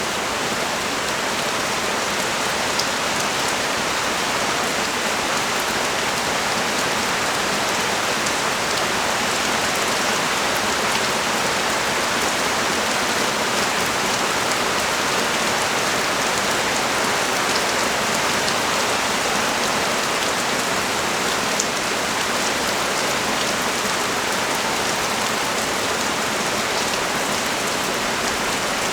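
Steady rain falling on the street and surrounding surfaces: an even, unbroken hiss with a few faint individual drop ticks.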